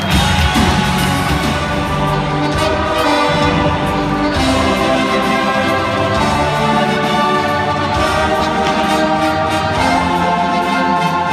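Orchestral music with brass, playing continuously at a steady level.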